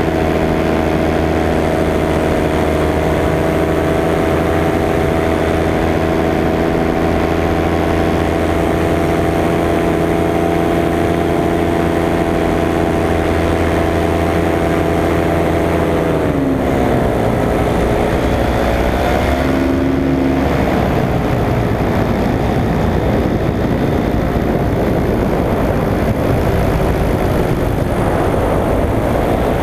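Paramotor engine and propeller running steadily at cruise power. About halfway through the throttle is eased back, so the pitch drops and wavers, then it climbs again near the end as power is added.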